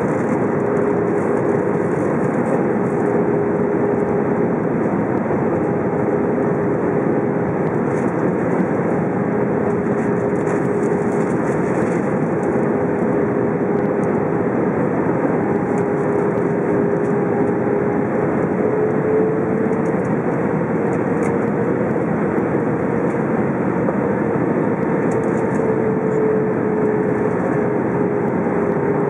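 Cabin noise of an Alitalia Airbus A319 on approach, heard from a window seat by the wing: a steady roar of airflow and engine with a constant engine hum. The hum rises slightly in pitch a little past halfway and settles back near the end.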